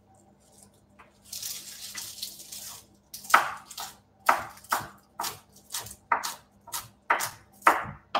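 Knife chopping fresh mint leaves on a wooden cutting board, about two chops a second from about three seconds in. Before it comes a short hissing rustle of about a second and a half.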